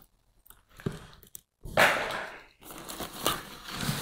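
Brown paper plant sleeve rustling and crinkling as a wrapped potted plant is pulled out of a cardboard shipping box, loudest a little under two seconds in.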